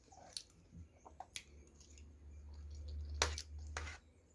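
Close-miked eating sounds: chewing and wet mouth clicks, with two sharper clicks about three and three-and-a-half seconds in over a low rumble.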